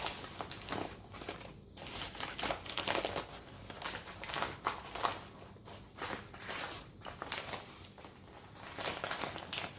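Sandwich wrapper crinkling and rustling as it is handled, in irregular bursts of crackle.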